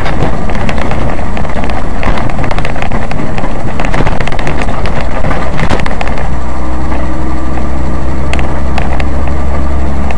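Car on the road: steady engine and road noise with scattered clicks and knocks, and a deeper steady drone coming in about six seconds in.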